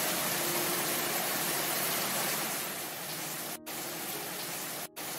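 Heavy monsoon rain pouring steadily onto leaves and trees as a dense, even hiss. It eases slightly a little before the middle and cuts out for a split second twice near the end.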